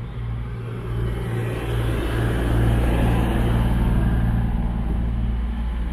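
Class 221 Super Voyager diesel-electric unit standing at the platform with its underfloor Cummins diesel engines idling: a steady low hum, with a broader rushing noise that swells from about two seconds in and eases near the end.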